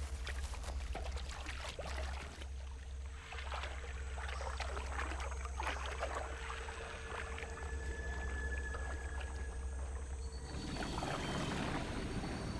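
Water splashing and lapping as a swimming green iguana paddles through the water, a string of small splashes and trickles over a steady low hum. About ten seconds in, the splashes give way to a softer, fuller wash of water.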